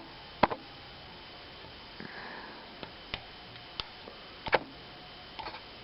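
Scattered sharp metallic clicks from a flag pick and flat tension tool working the pins of a six-pin dimple lock, about half a dozen, the loudest about half a second in and about four and a half seconds in. A short sniff about two seconds in.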